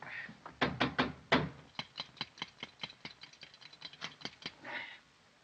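A few knocks, then a fast, even run of light clicks, about six a second, as the hand pump of a blowtorch is worked to build pressure, with a short hiss near the end.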